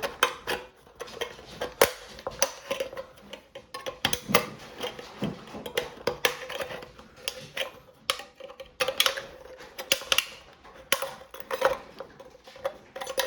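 Leatherman Surge multitool's can opener working against a metal can's rim, giving irregular sharp metallic clicks and scrapes with a faint ringing from the can.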